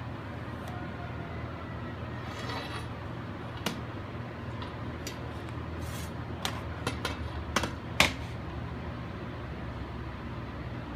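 Metal rules and a long straightedge are handled on sheet metal on a workbench, over a steady shop hum. A short scratch of a line being marked on the metal comes about two seconds in. Then comes a string of sharp clicks and clacks as the rules are set down and picked up, the loudest about eight seconds in.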